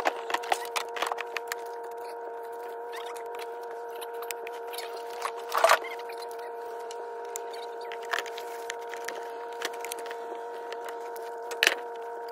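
Scattered clicks and knocks as a gas can and a chainsaw are handled in a plastic truck-bed liner, the loudest knocks about halfway and near the end, over a steady hum.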